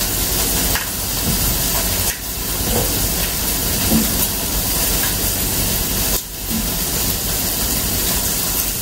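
A steady, loud hiss covering all pitches, dipping briefly twice.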